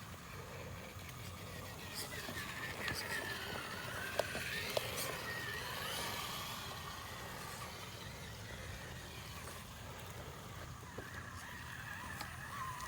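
Electric drive of an Element Trailwalker RC crawler whining, its pitch rising and falling with the throttle, with two sharp knocks about four to five seconds in.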